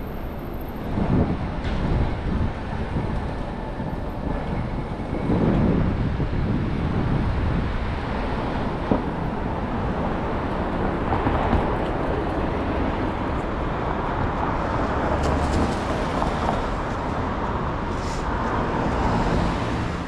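City street traffic noise: a steady rush of road noise with motor vehicles passing, several swelling up close in the first six seconds or so.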